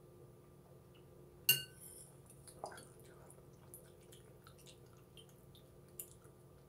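A metal spoon clinks against a soup bowl about a second and a half in, the loudest sound, ringing briefly. A few fainter clicks and small eating sounds follow as more chicken noodle soup is scooped up.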